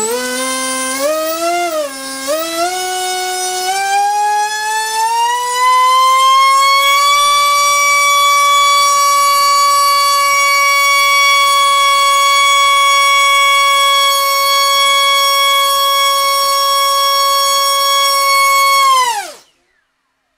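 Brushless motor and HQ 5-inch propeller on a thrust stand, run by a custom-built 6S ESC: a loud whine that climbs in pitch with two brief dips in the first few seconds, settles at a steady full-throttle pitch about seven seconds in, then winds down quickly and stops near the end. It is a short full-throttle burst pulling about 26 amps and about 1.35 kg of thrust.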